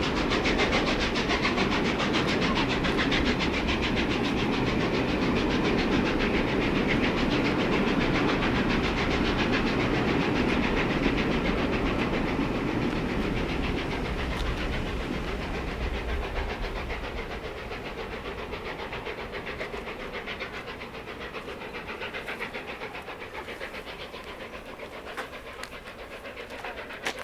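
A train passing close by on the rails, wheels clattering over the track, then fading away as it recedes from about halfway through.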